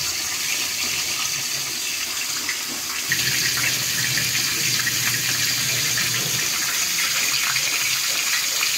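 Breaded chicken fillets sizzling and crackling as they deep-fry in hot oil in a wok, with a low hum underneath that stops and starts.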